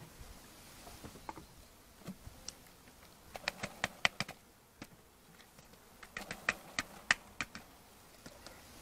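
Wooden beehive frames clicking and knocking against the hive bodies as they are lifted and moved. The sharp clicks come in two quick clusters, one around the middle and one a little later.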